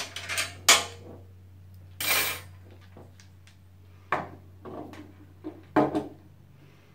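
Metal clicks and clatter of a screwdriver and loose parts being handled on a computer case during disassembly: a sharp clack less than a second in, a short scrape around two seconds, and scattered lighter clicks later, over a steady low hum.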